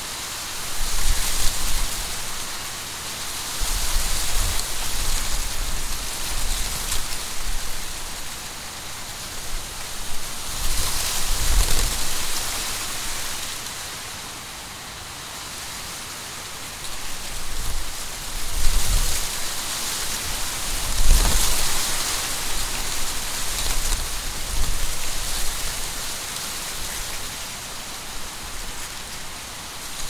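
Wind blowing through a field of dry, dead corn stalks, the papery leaves rustling in a steady hiss. The hiss swells and eases in several gusts, the strongest about a second in, near 4 s, near 12 s and around 19 to 22 s, with a low rumble of wind on the microphone in those gusts.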